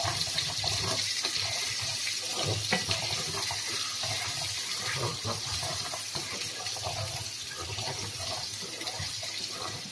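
Garlic-ginger paste and whole spices sizzling in hot oil in a frying pan while being stirred with a wooden spoon. It makes a steady hiss with small scattered crackles and grows slightly quieter over the stretch.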